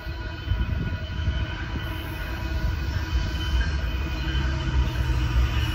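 Approaching freight train rumbling, led by Union Pacific's GE diesel locomotives, growing slightly louder toward the end, with steady high ringing tones from the crossing's warning bells over it.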